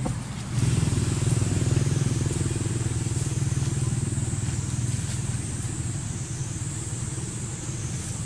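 A motor vehicle engine running steadily. It comes in loud about half a second in and slowly eases off.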